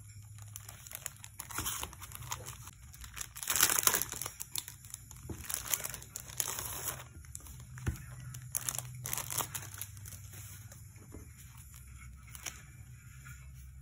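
Clear plastic wrapping crinkling and rustling in irregular bursts as hands pull it off a photocard binder. The loudest stretch is about four seconds in.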